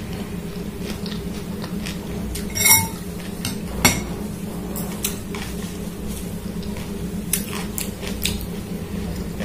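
Metal spoon and fork clinking against a glass bowl: one ringing clink just before three seconds in and a sharper tap about a second later, with softer scattered clicks afterwards.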